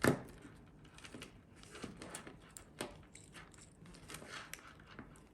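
Small irregular metal clicks and scrapes of a link-removal tool working against a stainless steel watch band's links, with one sharper click right at the start.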